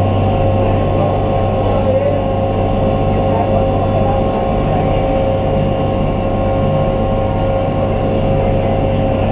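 Passenger boat's engine running at a steady cruise, a constant low drone with a steady whine over it, with no change in speed.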